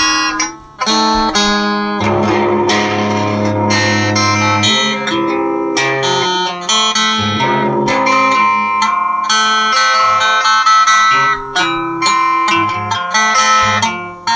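Instrumental guitar music: a passage of plucked guitar notes over low held notes, with a brief drop in the playing under a second in.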